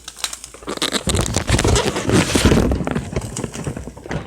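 Cookware scraping and knocking on a stovetop, loudest from about a second in until near the end.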